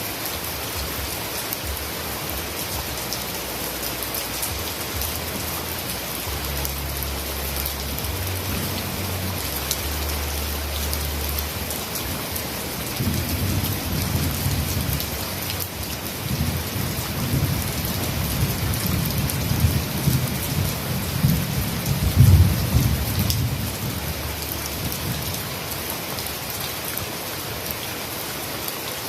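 Heavy rain falling steadily. Under it a low rolling rumble of thunder comes in about a fifth of the way through, builds to its loudest about three-quarters of the way through, then dies away, leaving the rain alone.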